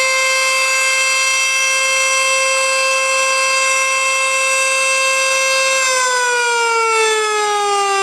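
Sentry 14V-B electromechanical outdoor warning siren sounding during a tornado siren test. It holds one steady tone, then about six seconds in its pitch starts to fall slowly.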